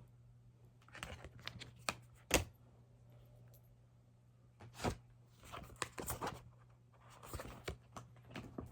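Tarot cards being handled and shuffled: scattered soft rustles and taps, with one sharper tap about two and a half seconds in, over a low steady hum.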